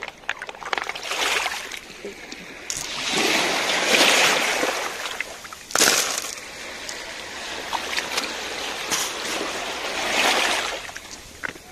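Shallow water sloshing and splashing over pebbles in several swells, loudest a few seconds in and again near the end, with one sharp knock about six seconds in.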